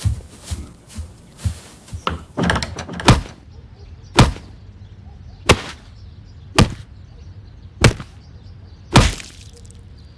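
Heavy blows: a flurry of knocks and clatter, then six hard whacks struck about a second apart.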